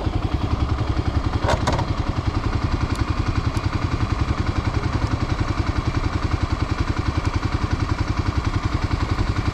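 Kawasaki KLX300's single-cylinder four-stroke engine idling steadily, its exhaust pulsing evenly, with a short clatter of light clicks about a second and a half in.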